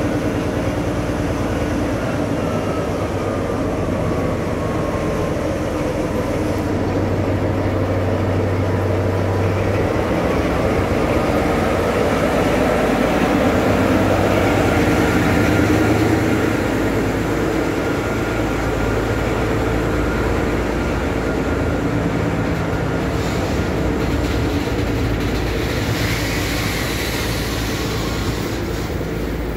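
Train passing slowly close by: a V60 diesel locomotive's engine drones steadily as it goes past, followed by the rolling and rumbling of its freight wagons and a towed, defective class 423 electric S-Bahn unit on the rails. The engine drone is strongest in the first half, and the loudness peaks about halfway through.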